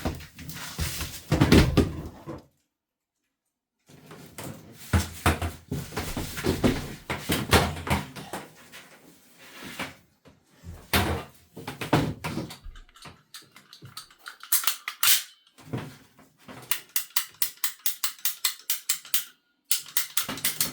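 Tools and plastic water pipe being handled while the pipe is measured for a push-fit connection: irregular knocks and clatter, then a fast, even run of clicks for about three seconds near the end.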